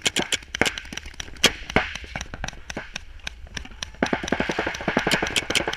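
Paintball markers firing in quick, irregular strings of sharp pops, several a second, during an airball paintball game.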